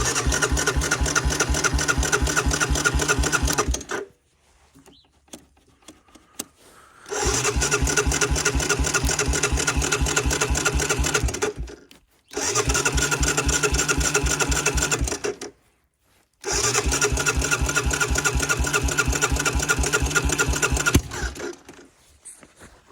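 Case 2090 tractor's diesel engine being cranked over by its starter on a cold start: four long runs of fast, even chugging, with short pauses between attempts.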